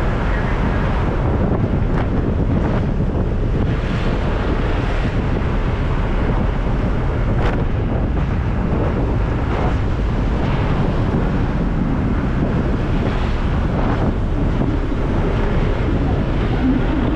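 Steady wind buffeting on the microphone of a camera riding on a moving motor scooter: a dense, even rumble of rushing air.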